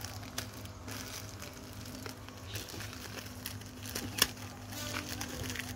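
Plastic courier mailer bag crinkling and crackling as it is cut and torn open by hand, with one sharp click a little after four seconds in.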